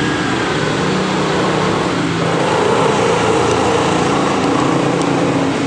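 A small engine running steadily in the background.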